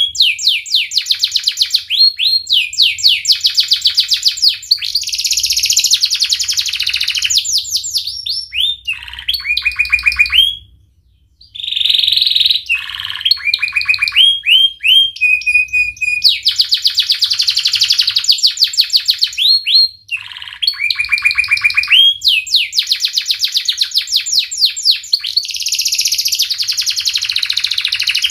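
Yellow domestic canary singing vigorously: a long run of fast rolled trills and rapidly repeated rising notes, broken by a short pause about eleven seconds in.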